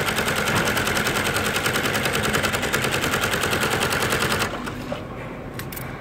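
Industrial sewing machine stitching through thick filter-bag felt at a rapid, even rate, stopping abruptly about four and a half seconds in; a few faint clicks follow.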